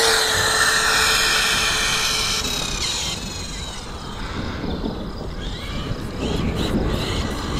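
Brushless motor and drivetrain of a ZD Racing 08425 1/8 RC buggy whining at full throttle on a 3S battery. The high whine falls in pitch and fades over the first few seconds as the car speeds away, then fainter whines rise and fall as it keeps driving.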